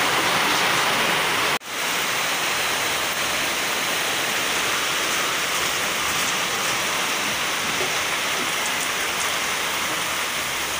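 Heavy rain with water pouring off a roof gutter: a steady rush of falling and running water that cuts out for an instant about a second and a half in.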